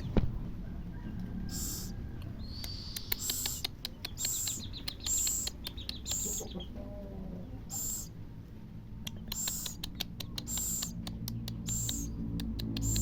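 Baby scops owl giving short, hissy, high-pitched begging calls, repeated about once or twice a second, with sharp little ticks in between.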